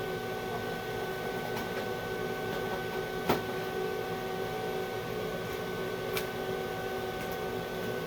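Stick (shielded metal arc) welding arc burning steadily as a bead is run, a continuous buzzing crackle with a steady hum, broken by two sharp pops about three and six seconds in.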